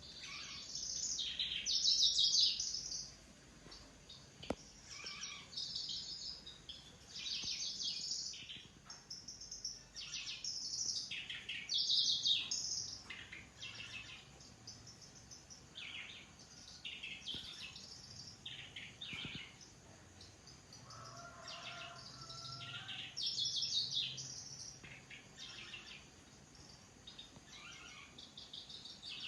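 Kecici belalang (cici lurik) singing: short, high, buzzy, insect-like phrases repeated every second or two. A lower whistled note comes briefly a little past the middle.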